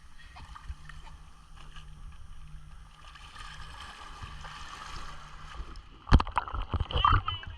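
Muffled sea water sloshing around a GoPro action camera in the surf, a steady low rumble. About six seconds in come several sudden loud splashes or knocks against the camera.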